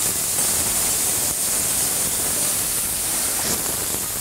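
Drained turnip greens sizzling steadily in hot olive oil with garlic in an aluminium frying pan, a constant hiss.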